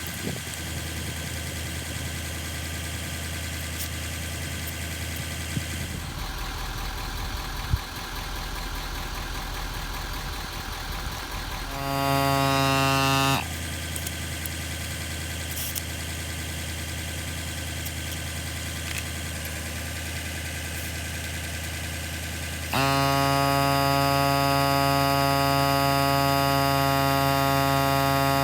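Viair 400P portable 12-volt air compressor running steadily over a low mechanical hum: its motor drone cuts in abruptly for a second or so about twelve seconds in, then starts again near the end and keeps running, inflating an aired-down truck tyre back up.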